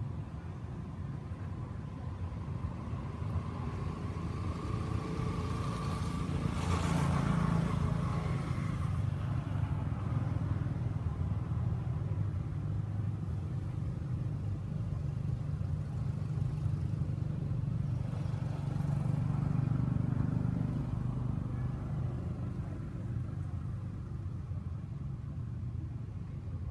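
Low, continuous road-traffic rumble that swells twice, about seven seconds in and again around nineteen seconds, as vehicles pass.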